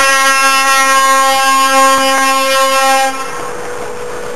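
Truck air horn sounding one long, steady blast of about three seconds that starts and cuts off suddenly.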